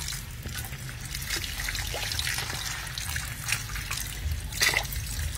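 A thin stream of water pouring onto a slimy, cud-covered cow stomach as it is rinsed by hand: steady splashing and trickling, with a couple of sharper splashes in the second half.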